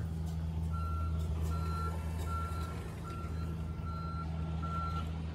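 Backup alarm of a construction vehicle on a torn-up road, a single-pitched beep repeating about once every 0.8 seconds, starting under a second in, over the steady low running of its diesel engine.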